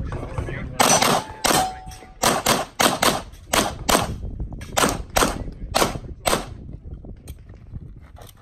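Rapid pistol fire from a Walther Q5 Match Steel Frame: about eighteen sharp shots, mostly in quick pairs a fraction of a second apart, starting a little under a second in and stopping after about six and a half seconds.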